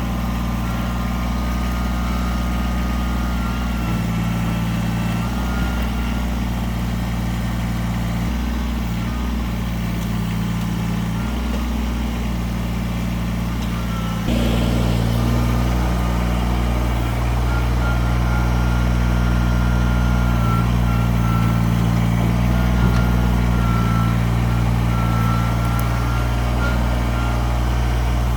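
Kubota BX23 compact tractor's three-cylinder diesel engine running steadily under work, packing brush down with its loader bucket. It gets abruptly louder about halfway through, and a thin high whine comes and goes over the engine.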